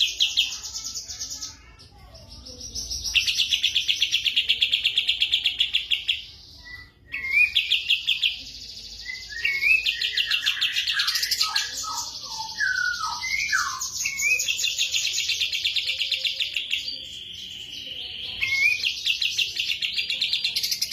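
A kapas tembak songbird singing continuously: long, fast chattering trills, with short breaks about 2 and 7 seconds in and a stretch of varied down-slurred whistled notes around the middle.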